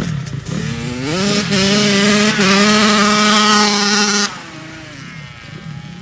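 Two-stroke dirt bike engine revving up, its pitch climbing over about a second and then held high and steady. It cuts off suddenly a little past four seconds in, leaving a quieter engine sound.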